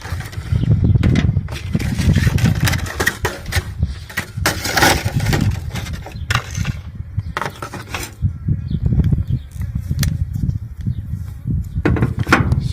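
Metal clinks and clicks of a wrench working bolts on a battery cable terminal, scattered irregularly with a cluster about four to five seconds in, over a steady low rumble.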